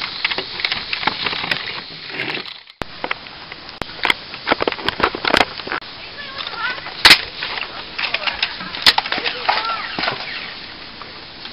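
Clatter and clicks of plastic Nerf blasters being handled, then, after a brief dropout, irregular knocks and clicks from toy-blaster play, with two sharper, louder cracks about seven and nine seconds in.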